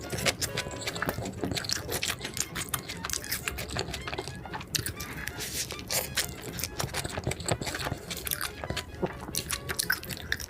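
Close-miked mukbang eating sounds: a person biting and chewing food, with a busy run of crunchy, wet mouth clicks.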